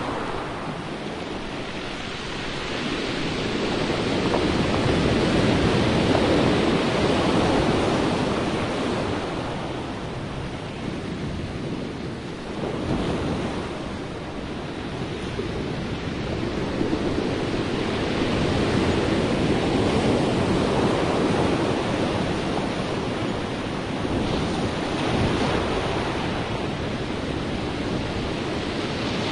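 Sea waves washing in and receding, a steady rushing noise that swells and fades in slow surges roughly every six or seven seconds.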